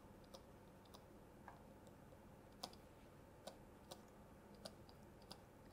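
Near silence with faint, irregular clicks of a stylus tapping and writing on a pen tablet.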